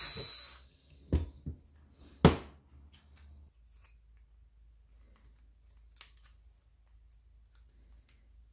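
Cordless drill drilling out a bolt hole in a small engine's cylinder block, stopping about half a second in. Then a few knocks and one sharp clack as the drill is set down and tools picked up, followed by faint handling clicks.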